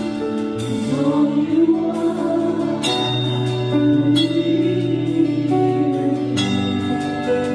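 Live worship band: a male vocalist singing a slow song over acoustic guitar and keyboard chords, with long held notes.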